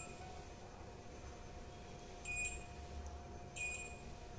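Digital multimeter in continuity mode giving two short, high-pitched beeps a little over a second apart as its probes touch points on a phone circuit board. The beep is the meter's signal of a low-resistance path, used here to hunt for shorted capacitors. A faint steady hum runs underneath.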